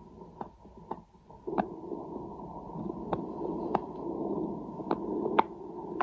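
Bluetooth Stemoscope chest piece heard through its phone app as it is placed on the upper back to listen to the lungs. A muffled rumbling rustle, cut off above the low and middle pitches, grows louder about a second and a half in. Several sharp knocks come from handling the chest piece.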